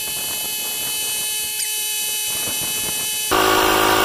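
Ryobi 18V cordless tire inflator running steadily with a whining hum, pumping a car tire up past 45 psi. A little over three seconds in, a much louder, deeper machine hum starts abruptly.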